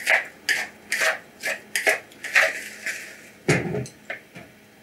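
A utensil scraping and stirring through a chopped mushroom filling in a mixing bowl, in quick rhythmic strokes about two to three a second. About three and a half seconds in there is one heavier knock, then a few fainter taps as the stirring slows.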